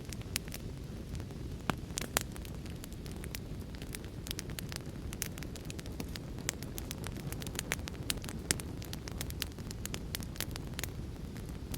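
Wood fire crackling, with frequent irregular sharp pops and snaps over a steady low rumbling hiss.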